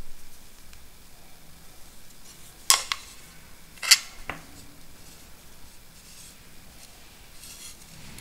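Handling noise from an outdoor CCTV camera and its cable connectors being turned over by hand: two sharp knocks about a second apart in the middle, the second louder, then a lighter click.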